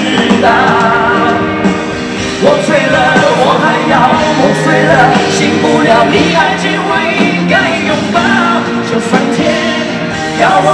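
Live pop-rock concert music: a band playing with singing over it.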